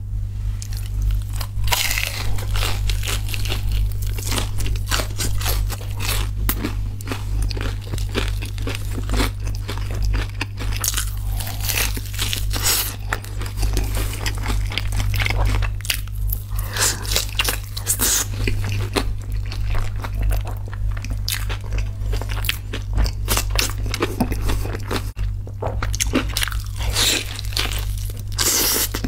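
Crisp crunching bites and chewing of crispy fried chicken, with many sharp crackles throughout. A steady low hum runs underneath.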